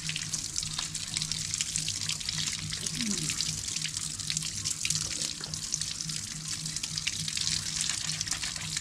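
Running water splashing onto a concrete floor as a freshly dug yam tuber is rubbed clean under it by hand, with a low steady hum underneath.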